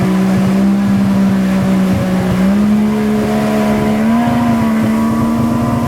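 Jet ski engine running steadily under way, its pitch stepping up slightly twice, over a rushing noise.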